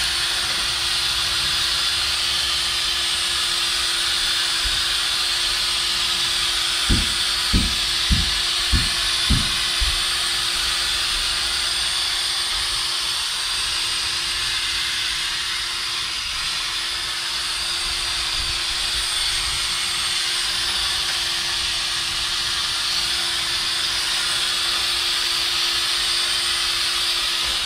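Cordless drill spinning a polishing pad against a plastic headlight lens: a steady whine with a hiss, cutting off suddenly at the end. Five low thumps come between about seven and nine and a half seconds in.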